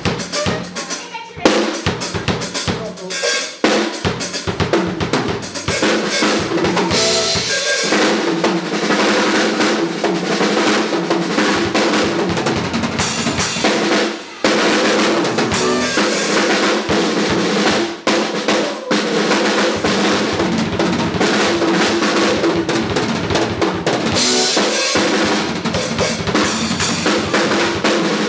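Drum kit played live in a fast, busy groove of kick, snare and rimshots with rolls, and a steady pitched instrument sounds under it from about eight seconds in.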